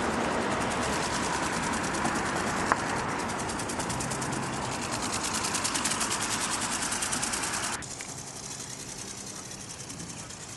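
Small electric motor and gearbox of a radio-controlled ornithopter whirring with a fast, even flapping rhythm. A sharp click comes a few seconds in, and the sound drops suddenly to a fainter whir near the end.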